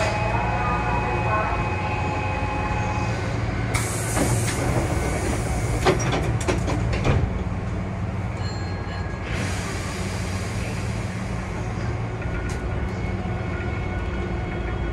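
Cab sound of a Hankyu 8000-series electric train around its departure: a steady low hum, a short burst of hiss about four seconds in, and a few sharp knocks between six and seven seconds.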